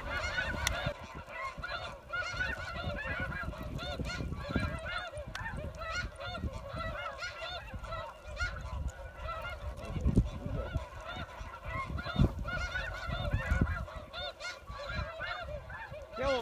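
A flock of snow geese calling overhead: many overlapping, high, yelping honks without a break, with low rumbles underneath.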